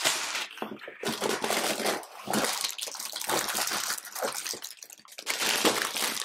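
Clear plastic bag of VEX IQ plastic parts crinkling and rustling as it is handled, in several uneven bursts.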